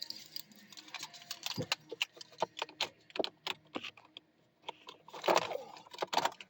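Car keys jingling and clicking in the hand: a quick, irregular run of small metallic clicks, with a louder jingle about five seconds in.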